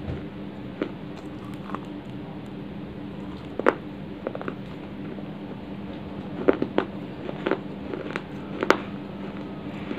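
Dry baked clay being bitten and chewed close to the microphone: irregular sharp crunches and crackles, loudest about a third of the way in and near the end, over a steady low hum.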